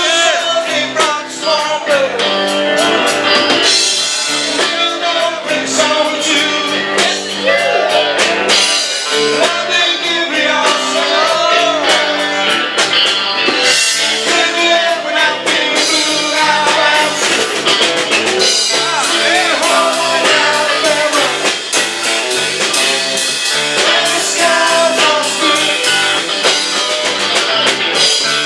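Live Southern rock band playing, with electric guitar and drum kit.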